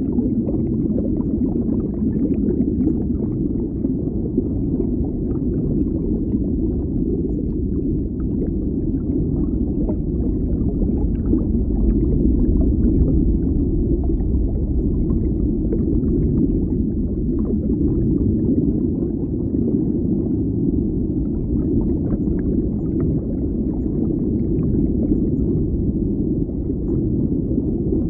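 Underwater ambience: a steady, low, muffled rumble of deep water, with faint scattered crackles above it.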